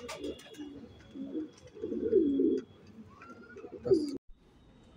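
Domestic pigeons cooing: low rolling coos in three bouts, the last just before the sound cuts off suddenly near the end.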